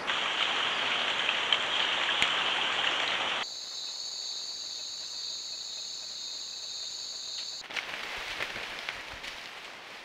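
Jungle trail-camera ambience in three abrupt cuts. First a dense steady hiss with a few clicks, then a quieter night insect chorus of steady high-pitched trilling, then a softer hiss with scattered light ticks in the leaf litter.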